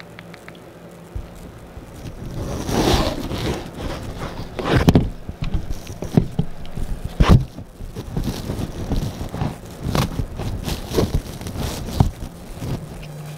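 Handling noise: hoodie fabric rubbing and bumping against the microphone of a camera hidden under it as the camera is moved about, with irregular rustles and a few sharper knocks starting about a second in.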